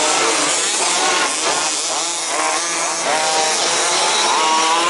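Several 1/5-scale petrol RC baja buggies racing, their small two-stroke engines revving up and down over one another as they accelerate and lift off around the track.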